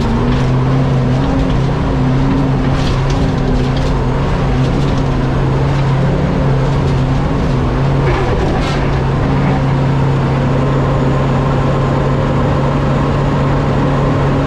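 Fire truck engine running hard at steady, held revs, its pitch stepping up at the start and staying level, as the truck strains and gets stuck off-road.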